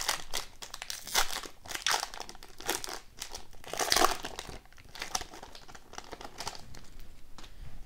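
Foil wrapper of a 2015-16 Upper Deck Ice hockey card pack crinkling and crackling as it is torn open by hand, loudest about four seconds in, then softer rustling as the cards come out.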